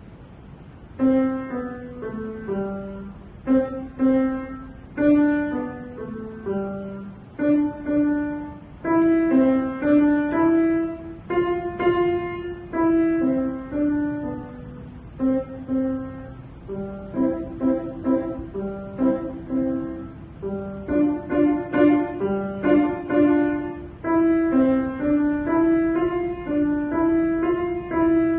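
Solo piano playing a simple beginner-level melody, struck notes fading after each key press, starting about a second in.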